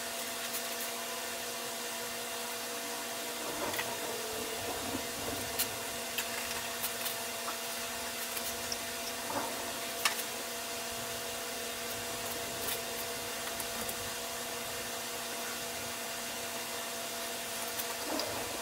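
A steady machine hum and hiss, with light clicks and taps from plastic pipe fittings and a small can being handled. The taps are mostly between about four and ten seconds in and come again near the end.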